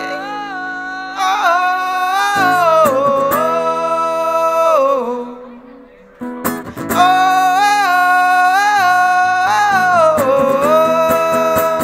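A man's voice singing a wordless melody in two long, gliding phrases over strummed acoustic guitar. The level drops briefly about halfway through, then guitar strums bring in the second phrase.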